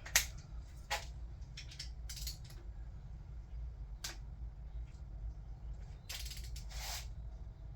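A preset torque wrench and ratchet tightening the camshaft cap bolts on a Toyota 2JZ cylinder head to 15 ft-lb: scattered sharp metal clicks and short rattles, with a longer rattle about six seconds in.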